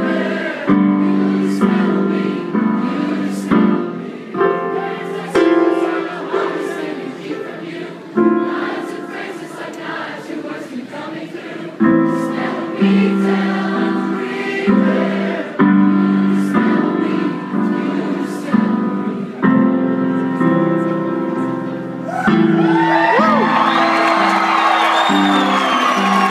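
Live solo piano playing sustained chords, struck every second or two, to close the song. A crowd cheers and whistles over the last few seconds.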